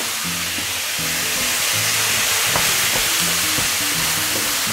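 Meat frying in a hot pan, a steady sizzle: the meat is being seared over raised heat.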